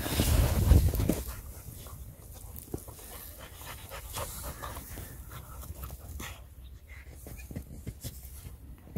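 Dogs panting and scuffling as they play in snow, loudest in the first second or so while they jostle right against the microphone, then quieter panting with small rustles and crunches.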